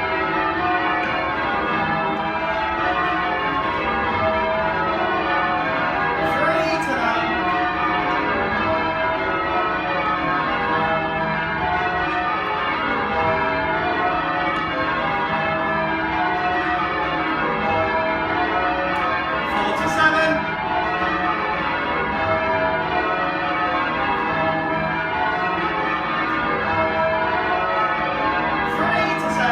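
Change ringing on a ring of ten tower bells, the heaviest a 17 cwt tenor in E, the strokes following one another in an unbroken, overlapping sequence. A brief scuffing noise comes about six seconds in and again about twenty seconds in.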